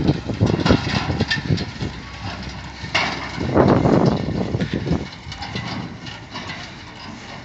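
A hay bale elevator clattering alongside a slowly moving truck, whose engine runs underneath. A louder rustling clatter starts about three seconds in as a bale reaches the top of the elevator.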